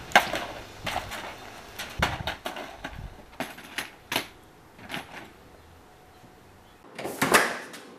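Footsteps on a paved driveway, heard as irregular sharp clicks about one a second that grow fainter. A door shuts with a louder clatter about seven seconds in.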